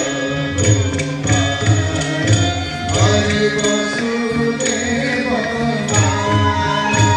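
Odissi dance music: a deep drum beating a steady rhythm of about two strokes a second, with small cymbals ringing and a sustained melodic line over it.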